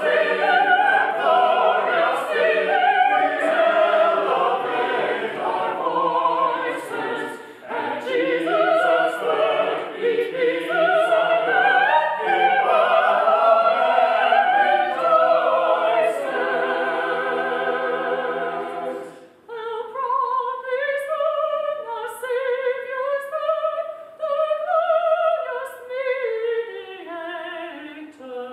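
Church choir singing a hymn arrangement in parts, ending a phrase on a held chord about two-thirds of the way through. After a brief pause, fewer voices carry the next phrase on.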